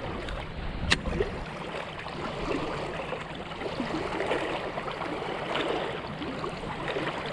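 Water lapping and trickling steadily, with one sharp click about a second in.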